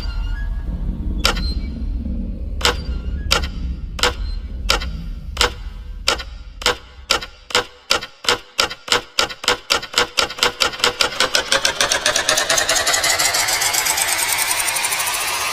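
Electronic dance track build-up: a drum hit repeating and speeding up into a fast roll. The bass drops out about halfway through, and a rising noise sweep builds over the last few seconds.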